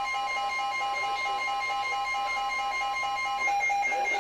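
Emergency Alert System alert tones: a steady electronic tone sounding together with a rapidly pulsing beep. The steady tone cuts off about three and a half seconds in while the pulsing beep goes on.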